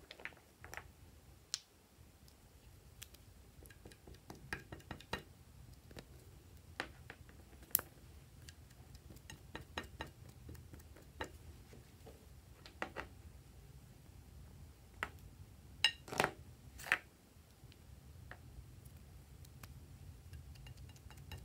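Light, scattered clicks and taps of small plastic squeeze bottles being handled and touched to slime in a glass bowl as coloured drops are dotted on, with a quick cluster of louder knocks about two thirds of the way through.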